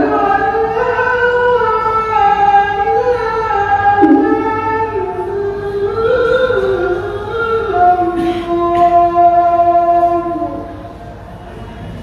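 A single voice singing a slow, unaccompanied melody with long held notes that slide from pitch to pitch; it stops about ten and a half seconds in.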